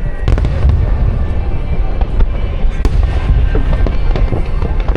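Aerial fireworks display: continuous deep rumbling booms overlapped by many sharp crackles and pops.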